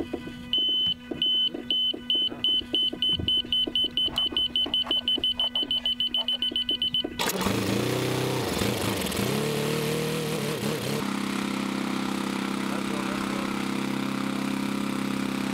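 A run of short high beeps that come faster and faster, then the Orlan-10 drone's small petrol engine starts suddenly about seven seconds in, its propeller spinning. The engine revs up and down a few times and then settles into a steady, even run, warmed up for launch.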